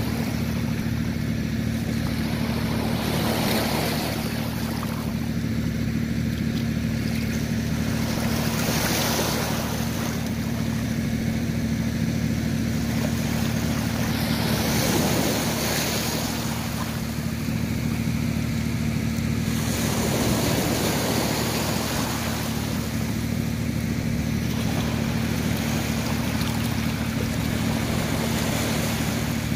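Small waves washing up the beach and draining back every few seconds, over a steady low motor hum.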